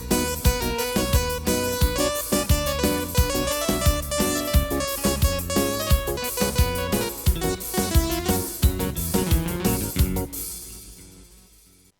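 Yamaha arranger keyboard playing an accompaniment style: keyboard or piano parts over a steady drum beat and bass, fading out over the last two seconds or so.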